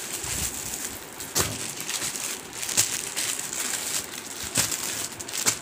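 Clear plastic packets of folded cotton suits crinkling and rustling as they are handled and spread across a table, with a few sharper crackles.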